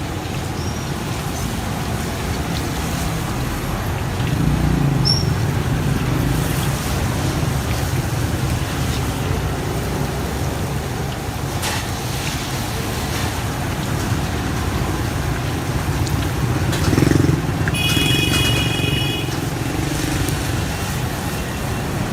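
Busy street traffic with motorbikes going past: the rumble swells twice as vehicles pass, and a horn sounds briefly near the end.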